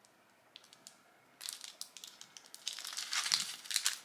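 Crinkling and crunching handling noise made of many quick crackles. It starts about a second and a half in, grows louder near the end, then cuts off suddenly.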